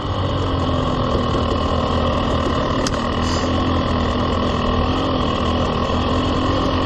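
KTM 300 two-stroke dirt bike engine running steadily at low trail speed, with a single sharp click about three seconds in.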